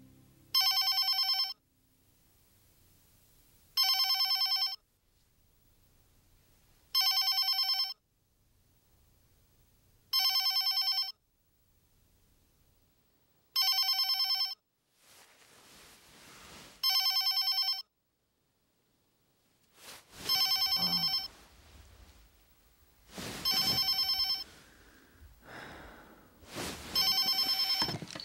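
Mobile phone ringing with a trilling electronic ring, short rings about every three seconds, nine in all. Quieter shuffling noises come between the later rings.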